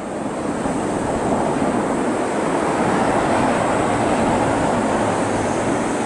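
Steady rushing noise of road traffic on an expressway below.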